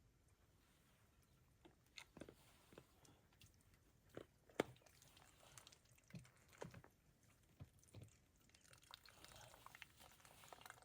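Faint, scattered clicks and crinkles of a plastic water bottle and filter being handled while water is filtered, with one sharper click about four and a half seconds in.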